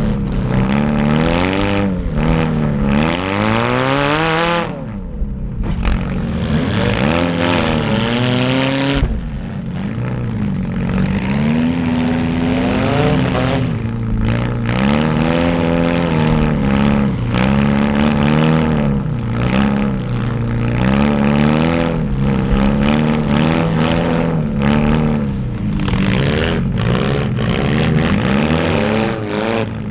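Small demolition derby cars' engines revving up and down over and over as the cars accelerate, back up and hit each other, with short knocks here and there.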